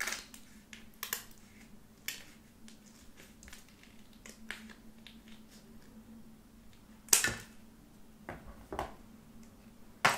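Scissors snipping through the crimped plastic end of a body lotion tube: a series of short, sharp crunchy snips, the loudest about seven seconds in, over a faint steady hum.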